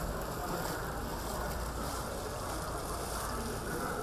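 Steady outdoor background noise with a low rumble underneath; no single sound stands out.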